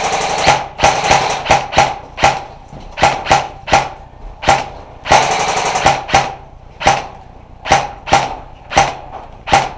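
Airsoft electric rifle firing: a rapid full-auto burst as it begins, then a string of single shots at irregular intervals, and a second full-auto burst about five seconds in, each shot carrying the gearbox's short whine.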